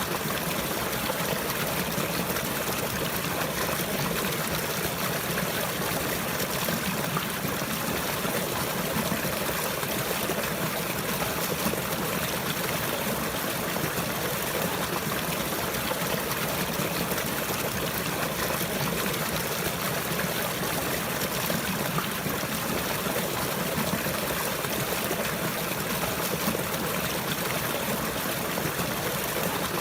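Running water of a stream, a steady even trickle without letup.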